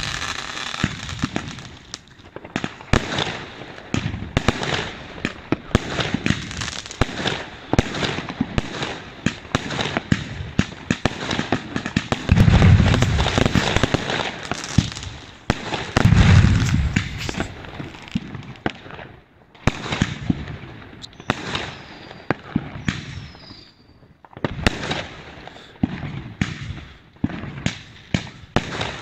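Consumer fireworks going off in a rapid string of sharp bangs and crackling reports as comets rise and shells burst, with the heaviest, deepest booms about twelve and sixteen seconds in and a couple of short lulls later on.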